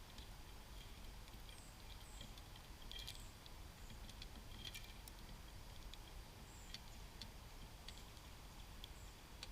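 Faint, irregular ticks and clicks of small birds pecking at seed on a feeder, with a few short, high, downslurred call notes.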